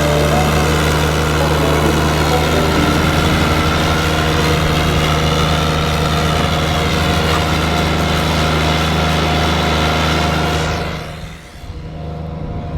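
Engine of snow-clearing equipment running steadily at a constant speed close by. About eleven seconds in it drops away to a quieter running sound.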